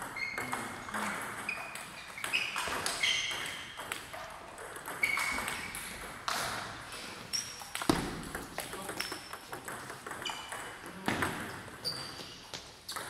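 Table tennis rally: the ball clicking sharply off the paddles and bouncing on the table, a steady back-and-forth of short ringing pings at about two a second.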